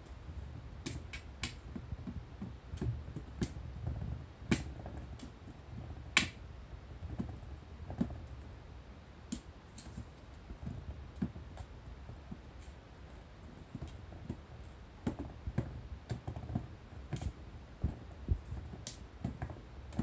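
Kittens playing on a tatami mat, pawing and scrabbling at a cardboard box and a toy ball: irregular light clicks and taps over soft low thumps, with one sharper click about six seconds in.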